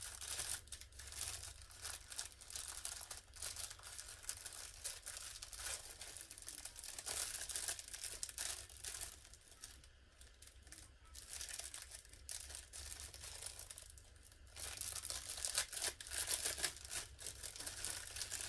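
Clear plastic bag crinkling and crackling as hands pull it open, with a quieter stretch in the middle and louder crinkling toward the end.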